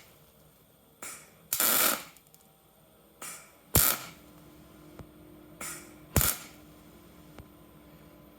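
Wire-feed (MIG) welder laying short bursts of weld to build up a gear tooth: six brief crackling bursts, irregularly spaced, the sharpest about halfway through and near the end. A faint steady hum starts about halfway through.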